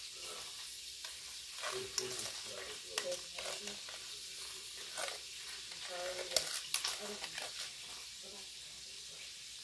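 A plastic spoon stirring diced apples and brown sugar in a stainless steel mixing bowl: irregular wet scrapes and clicks of the spoon against the metal, over a steady hiss.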